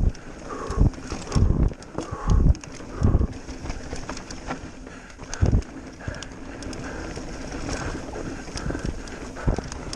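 Mountain bike riding fast down a dirt trail: tyres rolling over the dirt with the bike's frame and parts rattling, and several heavy thumps as it hits bumps, most of them in the first few seconds.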